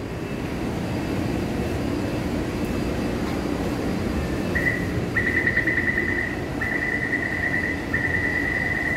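Taipei Metro door-closing warning: a rapid high beeping starts about halfway through and comes in several bursts of about a second each, over the steady hum of the train standing at the platform with its doors open.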